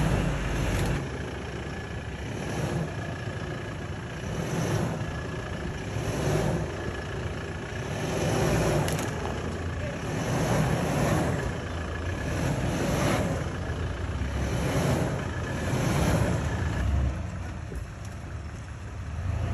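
Four-wheel-drive engines running low and steady as the vehicles crawl up a rocky dirt track, with a rushing noise that swells and fades every couple of seconds.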